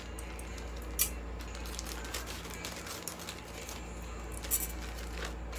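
Plastic parcel bag crinkling and rustling as it is handled and opened, with sharper clicks about a second in and again near the end.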